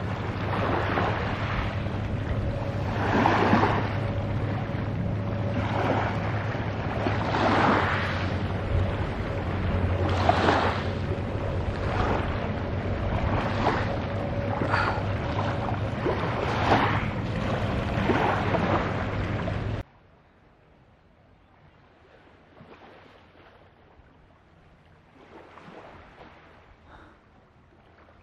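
Small waves washing onto a pebble beach, a swell every two to three seconds, with wind rumbling on the microphone. About two-thirds of the way in the sound cuts off suddenly to a faint hush of distant waves.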